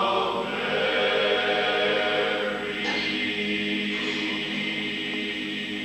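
Men's barbershop chorus singing a cappella in close four-part harmony, holding sustained chords, with a chord change about three seconds in.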